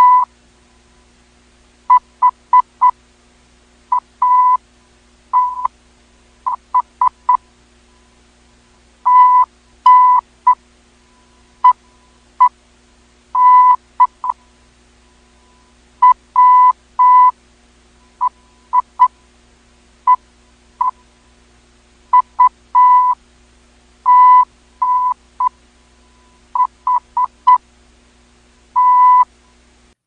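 Morse code sent as a beeping tone: short dots and longer dashes in groups, with pauses between letters and words.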